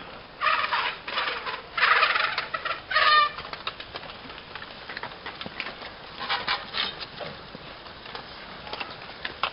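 Spectators yelling encouragement at passing cyclocross riders: three loud shouts in the first three seconds or so, then fainter scattered calls.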